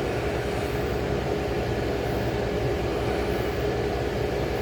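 A 35-year-old General Electric Carry Cool window air conditioner running steadily, its compressor and fan giving an even hum with a steady mid-pitched tone over a low rumble.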